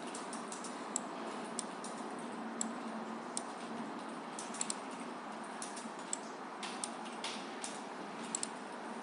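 Computer mouse buttons clicking, single sharp clicks at irregular intervals, over a steady background hiss.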